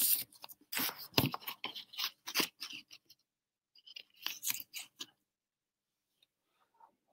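Irregular clicks and rustling close to the microphone, in two spells about a second apart, the second shorter.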